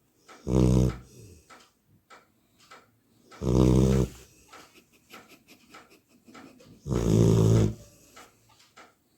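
Labrador puppy snoring in its sleep, like a person: three loud, buzzing snores about three seconds apart, each under a second long, with soft breathing between them.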